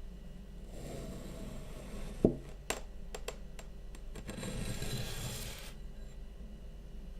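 Kinetic sand being cut and crushed: a soft crumbling rustle with one sharp knock about two seconds in and a few crisp clicks after it. A louder crumbling hiss follows and stops about a second and a half before the end.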